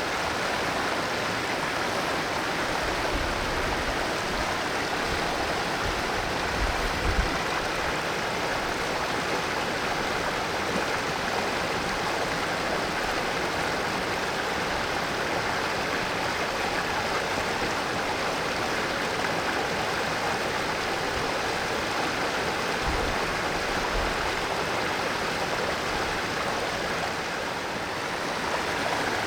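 Valley stream flowing: a steady, even rush of water running over its bed.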